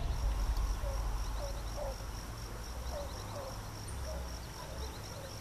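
Outdoor nature ambience: a steady high-pitched insect trill, with birds chirping and giving short calls over a low rumble.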